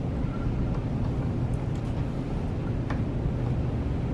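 A steady low hum, with a few faint taps as chopped meat and sweet potato are slid off a cutting board into a pot, one of them about three seconds in.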